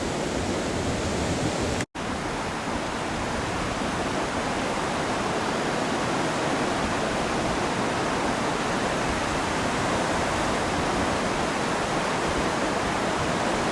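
Flash-flood water rushing steadily as a dense, unbroken torrent. The sound cuts out for an instant about two seconds in.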